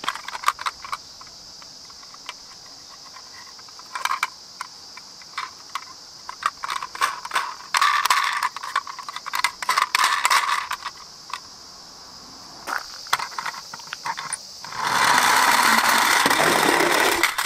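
Plastic toy ambulances being handled and knocking against each other in a cardboard box: sharp clicks and rattles, with a steady high insect drone underneath. Near the end comes a louder rushing noise for about two seconds.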